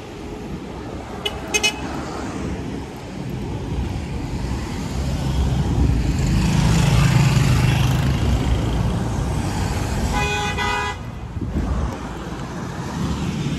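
Busy street traffic: two short car-horn toots about a second and a half in, a vehicle passing close with its engine loudest around the middle, then a horn held for about a second near the end.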